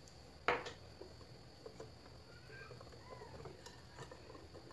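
One sharp click about half a second in, then faint light ticking and tapping as a wire whisk stirs thin cake batter in a glass mixing bowl.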